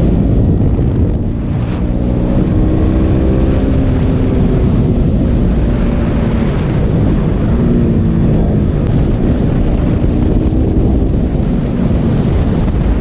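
KTM RC 200's single-cylinder engine running under way, its note rising and falling several times with the throttle, under heavy wind noise on the microphone.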